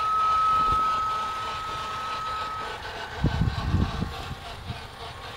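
A steady high-pitched electronic tone, held unchanged and stopping about two and a half seconds in, followed by irregular low rumbling and knocks.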